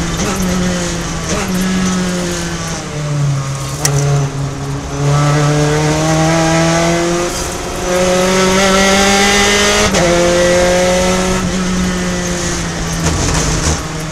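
Gen3 Spec Racer Ford's engine heard from the cockpit, braking for a corner with downshifts from fifth to third, its pitch falling with quick jumps. It then climbs steadily under acceleration, and the car shifts up to fourth about ten seconds in.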